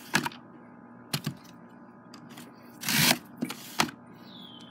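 Clicks and knocks of a hand-lever French fry cutter and raw potato sticks being handled on a tile tabletop, with one short rustling scrape about three seconds in.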